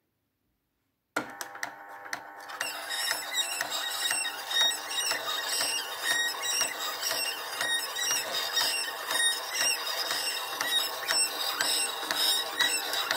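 Reflecta 8mm/Super 8 film scanner starting to run about a second in, its transport advancing the film with steady repeated clicking and a squealing noise, the noise the owner reports on the take-up reel side.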